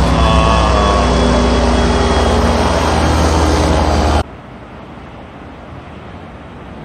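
Helicopter flying close past: a loud, fast, steady chop of the rotor blades with an engine whine. It cuts off abruptly about four seconds in, leaving a quieter steady background noise.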